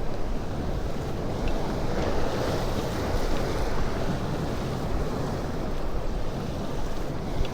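Sea surf washing in, with wind buffeting the microphone: a steady rush of noise that swells a little two to three seconds in.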